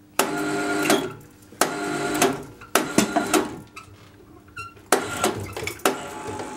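Hoist motor run in about five short stop-start bursts, each under a second and starting with a sharp clack, with a steady whine, lifting a strapped engine on its pallet.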